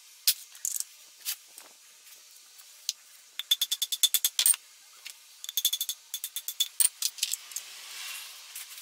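Light, rapid hammer taps on metal at a motorcycle engine's aluminium crankcase half, in quick runs of about ten taps a second with a ringing tone, plus scattered single taps, as a bearing is driven out of the case.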